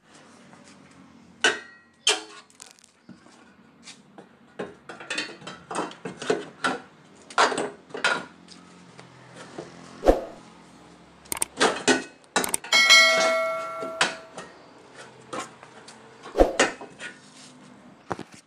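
Replacement exhaust silencer and steel pipe knocking and clanking as it is handled and hung into place under a car. One clang about two-thirds of the way through rings on for about a second.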